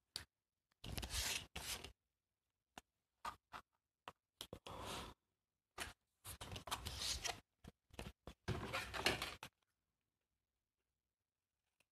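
Paper and card tags being handled on a craft desk: rustling and rubbing in separate bursts, the longest about a second, with light taps and short silent gaps between.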